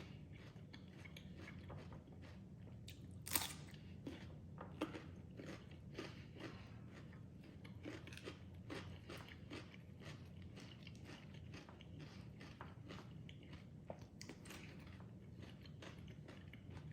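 A person chewing a mouthful of spicy salmon and raw-vegetable salad, with many faint crunches and wet clicks of the mouth, one a little louder about three and a half seconds in.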